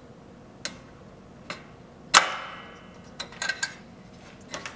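Sharp metallic clicks and clinks as the hood release cable is worked free of the 2004 Chevy Silverado's hood latch with a pick, with one louder clink about two seconds in that rings briefly and a quick run of small clicks after it.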